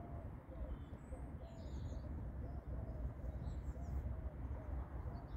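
Wind rumbling on the microphone, with a steady train of short squeaky notes, about three a second, and a few faint high bird chirps.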